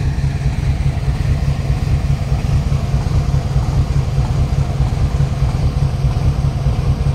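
WDG-4G diesel-electric locomotive's 12-cylinder GE engine running at idle: a loud, steady low rumble with an even pulsing throb.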